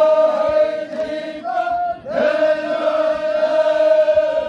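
Zikri chogan devotional chant: voices singing two long, steady held notes, the second beginning about two seconds in.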